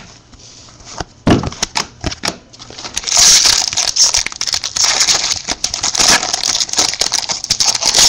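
Foil trading-card pack wrapper being torn open and crinkled by hand. A few separate clicks come first, then from about three seconds in a dense, continuous crackling.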